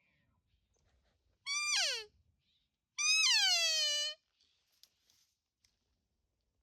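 Two cow elk mews, the first about a second and a half in and a longer one at about three seconds, each starting high and falling in pitch.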